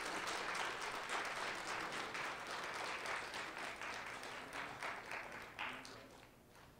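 Audience applauding, thinning to a few separate claps and dying away about six seconds in.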